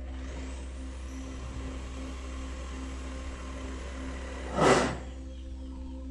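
Background music with a steady low pulse. Over it, a rushing noise with a thin high whine swells in from the start and ends in a short, loud whoosh about four and a half seconds in.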